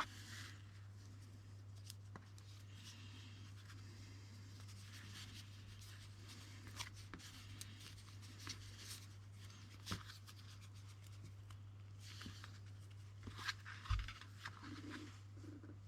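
Braided paracord bracelet being rubbed between the hands to soften it: a faint scratchy rustle of cord on skin, with a few small clicks and taps. A steady low hum runs underneath.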